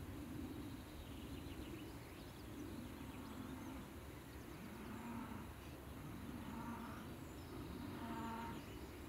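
Bees buzzing close by, their hum rising and falling in pitch as they fly about, with faint high chirps in the background.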